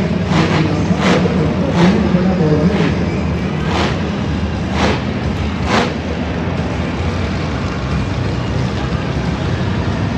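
Monster truck engines rumbling steadily, with a voice over a loudspeaker in the first couple of seconds and short sharp hissing bursts about once a second for the first six seconds.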